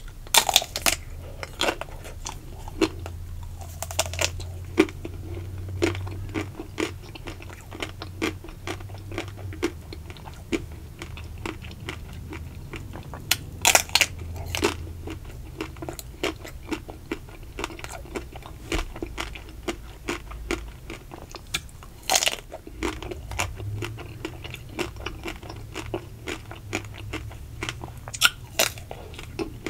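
Close-miked bites cracking through the thin ruby chocolate shell of an ice cream bar, followed by crunching and wet chewing of the shell and ice cream. There are sharp cracks now and then, the loudest near the start, about halfway through and near the end, with small crackles between them.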